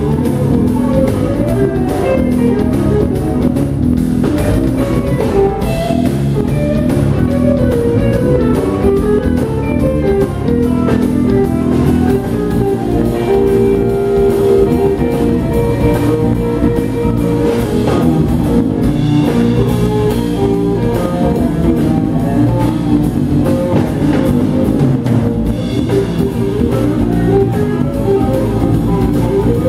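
Live jazz band playing: electric guitar, electric bass and a drum kit, with Fender Rhodes electric piano.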